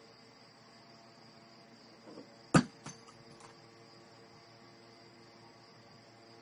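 A small object knocked off a dresser by a cat hits the floor about two and a half seconds in with one sharp clack, then a smaller bounce and a couple of faint ticks as it settles. Under it runs a steady, faint, high-pitched hiss.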